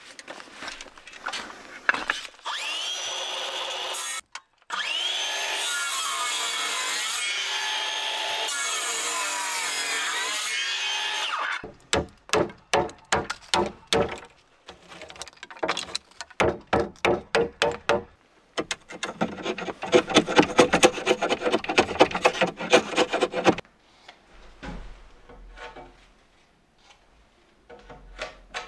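Handheld circular saw cutting a hardwood floorboard, running with a steady whine whose pitch wavers under load, stopping briefly about four seconds in and starting again. About halfway through, it gives way to a series of sharp hammer blows on the board's end at two to three a second, then several seconds of fast rasping scrapes on the wood, ending with a few faint clicks of handling.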